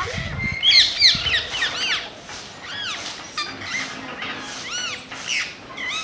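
Parakeets calling: a rapid run of shrill, rising-and-falling squawks, several overlapping, loudest in the first two seconds.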